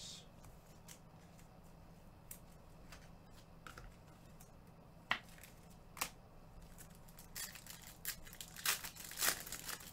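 Trading card pack wrappers being torn open and handled: scattered short crinkles and rips that come more often in the last few seconds.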